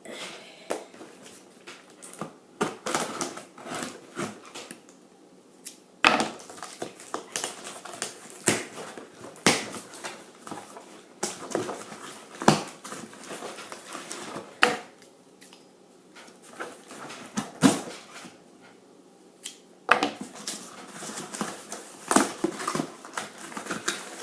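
Packaging of a puzzle cube being handled and opened by hand: irregular rustling with many sharp clicks and taps, quieter for a few seconds near the middle.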